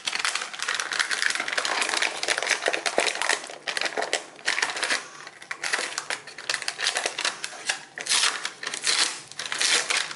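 Printed kraft wrapping paper crinkling and crackling as a parcel is unfolded and peeled open by hand, in a busy run of rustles with a few short pauses.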